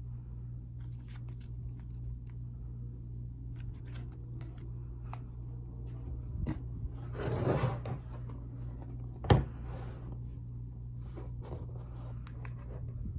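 Close handling noises of a watch box and its packaging: small scattered clicks and taps, a rustling burst about seven seconds in and one sharp click about nine seconds in, over a steady low hum.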